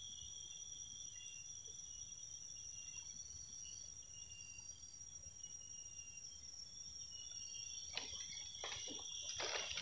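Insects droning steadily in several high-pitched layers, with a few short rustles near the end.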